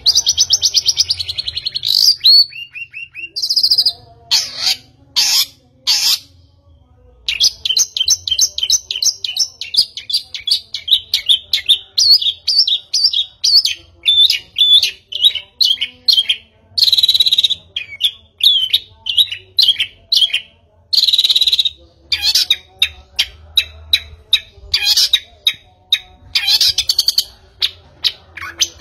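A bird singing: rapid chirps and trills in quick runs, nearly continuous with a few short pauses.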